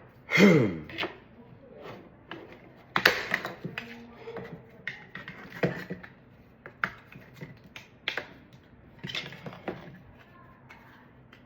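Irregular light clicks and taps of hard plastic 3D-printed pieces being handled and worked by hand, with a brief falling pitched sound about half a second in.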